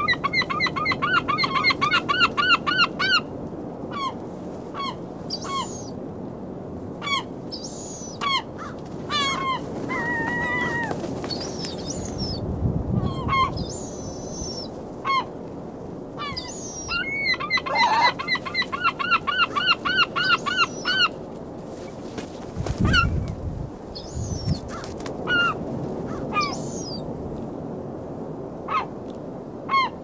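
Gulls calling: two long runs of rapid, repeated laughing calls, one near the start and another a little past the middle, with single calls scattered between them.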